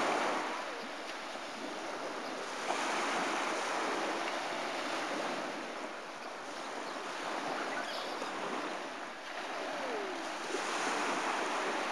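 Small waves washing onto a pebble beach: a steady rushing hiss that swells and eases every few seconds.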